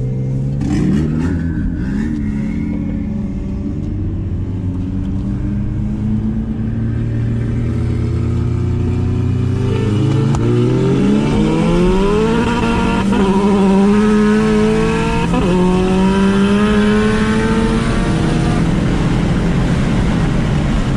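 Hyundai Veloster N's turbocharged 2.0-litre four-cylinder heard from inside the cabin: running at low revs for about ten seconds, then accelerating hard, its pitch rising in steps as it pulls through the gears. Near the end the engine note is mostly covered by a rushing noise.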